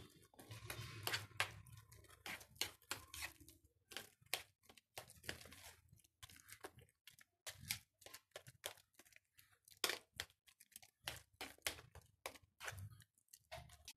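Hands kneading a wet mixture of canned chicken loaf, egg and chopped onion in a plastic container: quiet, irregular squishes and crackly clicks.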